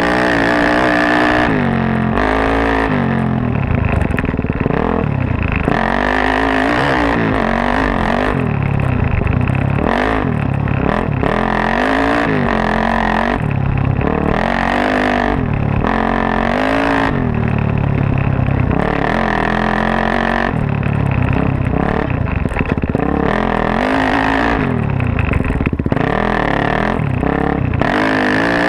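Suzuki DR-Z400S dirt bike, bored out to 440 with a full Yoshimura off-road exhaust: its single-cylinder four-stroke engine revs up and drops off over and over as it is ridden hard along a trail.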